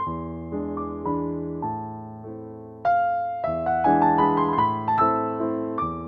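Gentle solo piano background music, single notes ringing and fading. A new, busier phrase of notes starts about three seconds in.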